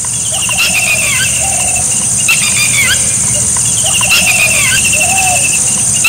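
Birds calling in a phrase of quick chirps and a short rattling trill that repeats about every two seconds. Under it runs a steady high-pitched insect buzz and a low rumble of wind.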